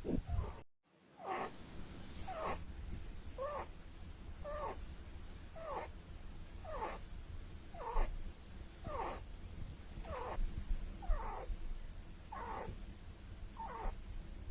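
Holland Lop rabbit snoring in its sleep: a short, falling-pitched snore about once a second, a dozen in a row, over a low steady rumble.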